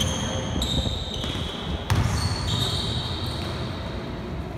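Basketball being played on an indoor court: sneakers squeak on the floor several times and the ball bounces, with one loud thump about two seconds in.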